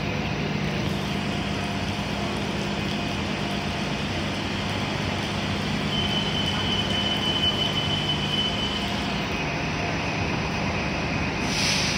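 City buses running through a bus station on wet pavement: a steady low engine hum over tyre and traffic noise. A thin high whine holds for a few seconds in the middle, and a short hiss comes near the end.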